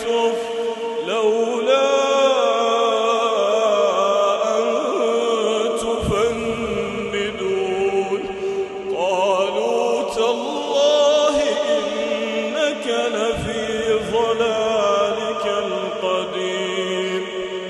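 A man reciting the Quran in melodic tajweed style, one voice holding long drawn-out notes with ornamented glides up and down.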